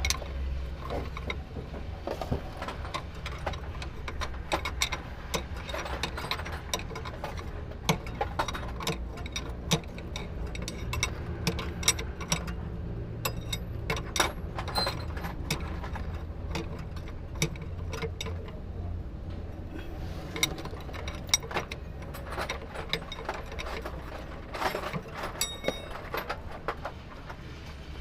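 Hand tools working on metal: irregular sharp clicks and ratcheting over a steady low hum.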